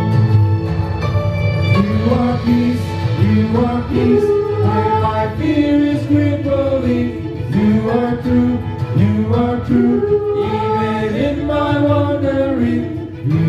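Church praise team singing a worship song over sustained instrumental chords; the voices come in about two seconds in.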